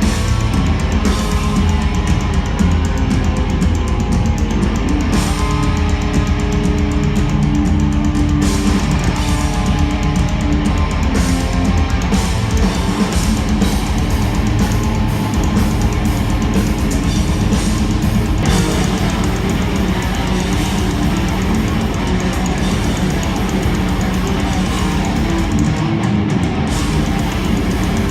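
Heavy metal music with guitar and a drum kit, playing steadily and loud.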